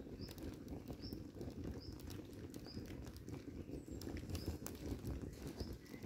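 Leopard-print ballet flats burning in a small open fire, crackling and popping with frequent sharp little clicks over a low rumble. Short high chirps, about one a second, sound through it.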